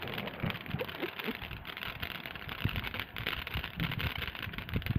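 Ground fountain firework spraying sparks, with a steady hiss and dense fine crackle.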